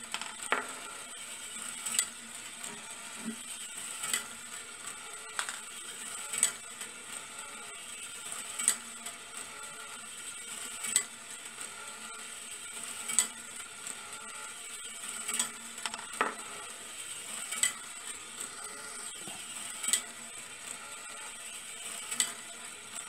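A small brass-wire marble machine running: a steady whir from its little electric motor and marbles rolling on brass rails. A sharp metallic click comes regularly about every two seconds, with smaller clicks and rattles in between.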